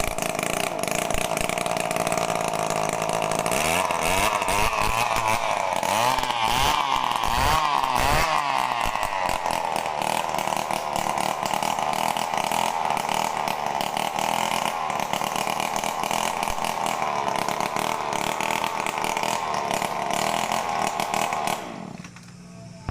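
Two-stroke engine of a freshly repaired RME260 brush cutter running at high speed. It is revved up and down a few times about four to eight seconds in, then held steady, and drops off sharply near the end. The machine is running smoothly.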